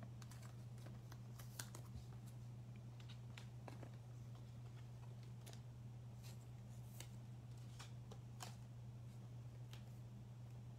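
Quiet room tone: a steady low electrical hum, with faint, scattered light clicks of trading cards being handled.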